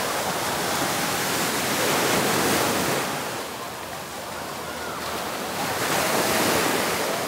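Surf breaking on a sand beach, the wash swelling twice about four seconds apart, with faint distant voices of beachgoers behind it.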